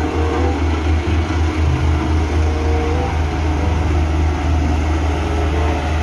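BOMAG single-drum road roller's diesel engine running steadily as the roller drives over a gravel road, a deep continuous drone.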